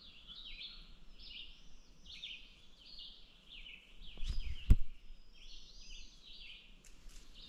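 Songbirds singing continuously, a dense run of quick high chirps and trills. About halfway through there is a single sharp knock.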